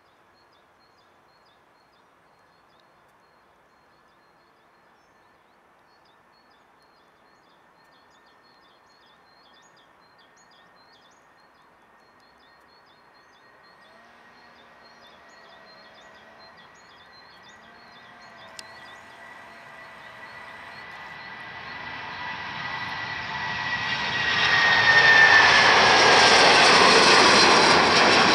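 Boeing 757-300 jet airliner taking off on a wet runway: its engines at takeoff power start faint and grow steadily into a loud rush with a high whine that drops slightly in pitch as it passes close and lifts off near the end.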